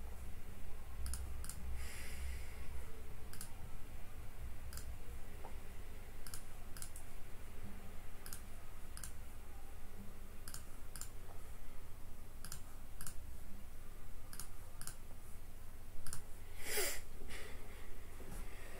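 Faint, sparse clicks, irregularly spaced a few per second, over a low steady hum in a small room, with one louder short rush of noise near the end.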